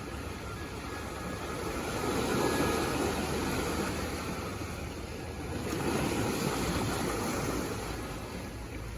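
Sea waves washing onto the shore, the surf swelling twice and easing back.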